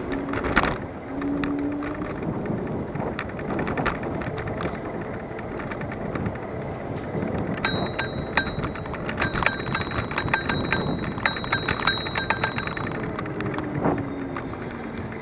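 An e-scooter's handlebar bell is rung rapidly many times for about five seconds, starting about eight seconds in. Underneath runs the steady rumble of the scooter's wheels on the path and wind, with the odd knock from bumps.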